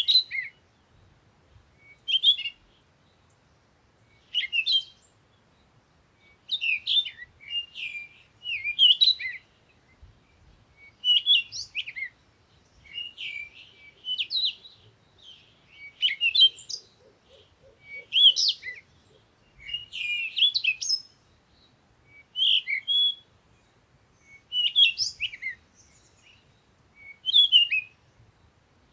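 Songbird singing, short phrases of quick chirps and whistled notes repeated every second or two with brief pauses between.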